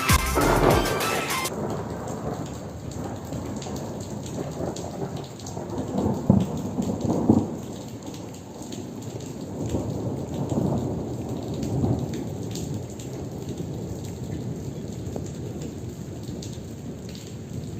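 Heavy rain falling steadily through a thunderstorm, with rolling thunder: the loudest peals come about six to seven seconds in, and weaker rumbles follow a few seconds later.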